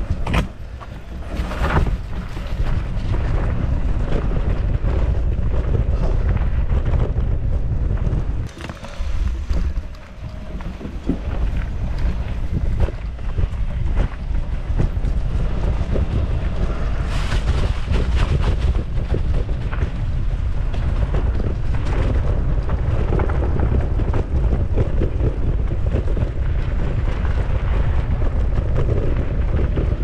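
Wind buffeting the camera microphone on a fast mountain-bike descent of a dirt trail, a heavy low rumble, with the bike's tyres and frame clattering over bumps. The rumble drops off briefly about nine seconds in.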